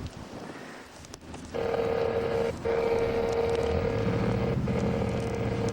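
A steady single-pitched tone starts about a second and a half in. It sounds in long stretches of one to two seconds with short breaks between them, over a low hum that grows about four seconds in.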